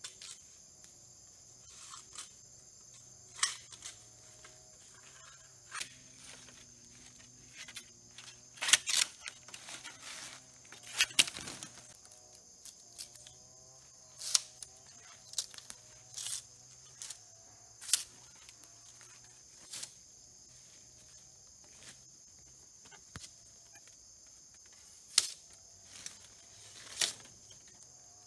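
Bamboo being worked by hand for a shelter: irregular sharp knocks and cracks, one every second or two, the loudest about nine and eleven seconds in, over a steady high hum of insects.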